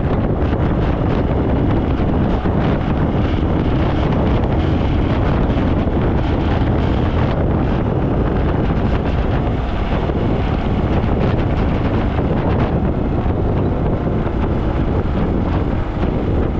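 Steady wind rushing over the microphone of a Gatoma 200 motorbike riding at speed, with the bike's engine and road noise underneath.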